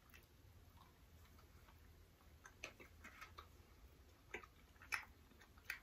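Near silence, with a scattering of faint, irregular mouth clicks from two people chewing candy in the second half.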